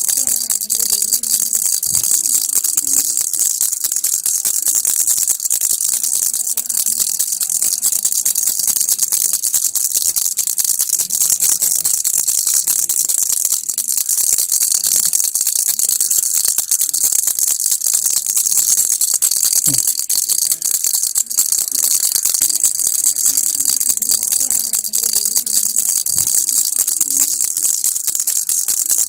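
Baby's rattle (kilukki) shaken without pause, a steady, dense, high-pitched clatter of beads inside it.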